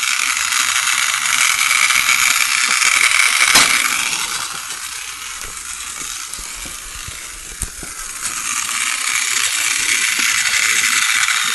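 Battery-powered toy train running on plastic track: the small geared motor and wheels give a steady rattling whir that eases off in the middle and picks up again, with two sharp clicks along the way.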